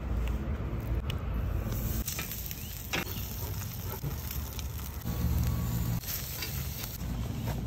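Meat and corn sizzling on a metal grill grate over a live charcoal fire, with crackling and a few sharp clicks of tongs on the grate, over a low steady rumble.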